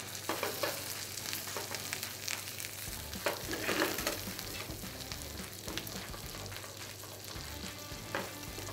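Beef steak sizzling in a frying pan in melted butter and rosemary: a steady frying hiss with scattered small crackles and clicks.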